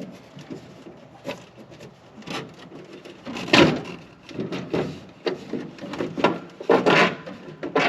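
Plastic dash cowling on a John Deere tractor being worked loose by hand: a run of irregular clicks, knocks and rattles, with a louder bang about halfway through and another near the end as it pops out.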